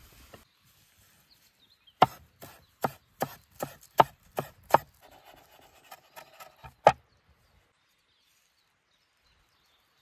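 Broad-bladed chef's knife chopping parsley on a wooden cutting board: a run of sharp knocks of the blade on the wood, about two a second for some five seconds.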